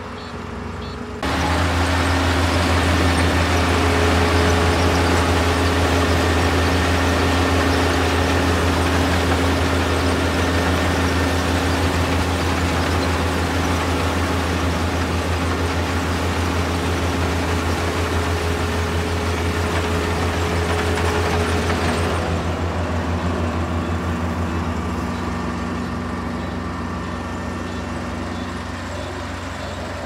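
Kubota DR472 combine harvester's diesel engine running steadily, with a low hum and several steady tones. About a second in the sound jumps suddenly louder, a dense hiss of machinery joining the engine. The hiss drops away after about twenty seconds and the sound slowly eases.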